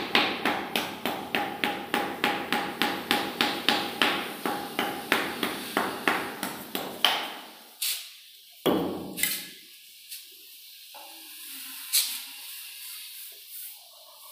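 Small hand hammer tapping along a narrow border strip inlaid between marble floor slabs, a quick even run of about three sharp knocks a second with a faint ring, growing softer. After about seven seconds the tapping stops, leaving a few scattered knocks and then faint rubbing.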